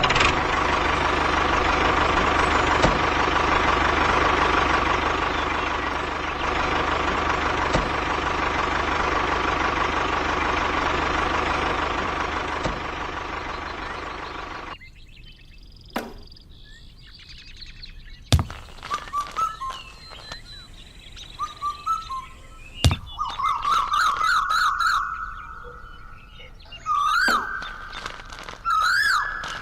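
A loud, steady noise with a constant hum runs and then cuts off suddenly about halfway through. After it come bird chirps with rising and falling pitch, and a few sharp knocks.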